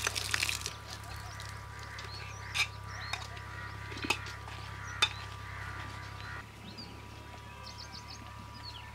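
Water splashing out of a tilted metal pot as the wash water is poured off vegetables, lasting under a second, followed by outdoor rural background with birds chirping and a few sharp knocks.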